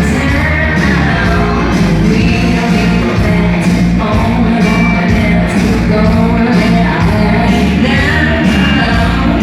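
Loud rock-style music with a singing voice and a steady beat.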